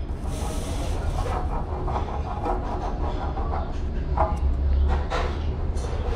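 Steady rushing noise over a constant low rumble, with a few faint clicks and taps; the rush is strongest in the first second.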